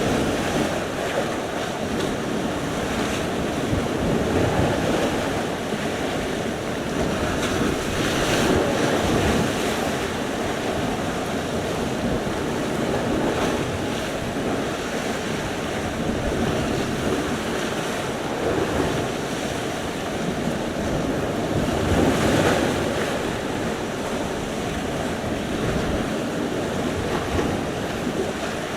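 Sea surf: waves breaking and washing ashore in a continuous rush, with louder breakers swelling about eight and twenty-two seconds in.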